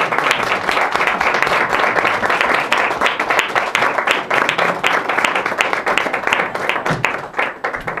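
Audience applauding with a dense patter of hand claps, starting to die away near the end.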